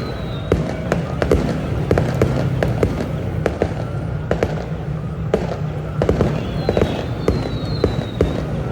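Fireworks going off: a run of irregular sharp bangs and crackles, with short high falling whistles about two-thirds of the way through.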